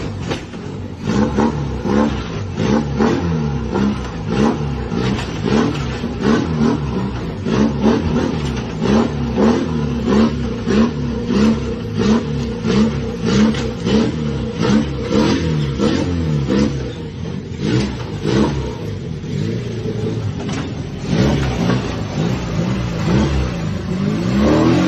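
Car engine surging up and dropping back over and over, about once a second, an uneven hiccuping run.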